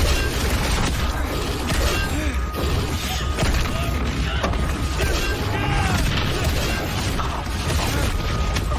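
Fight-scene sound effects: a rapid string of hits, crashes and clattering impacts, with short grunts, over a steady low rumble.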